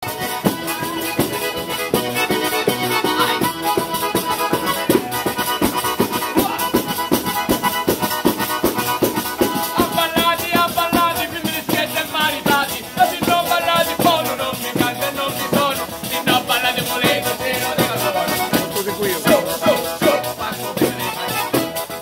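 Calabrian folk music played on a diatonic button accordion (organetto) and a piano accordion, with a tamburello frame drum beating a steady fast rhythm and its jingles rattling.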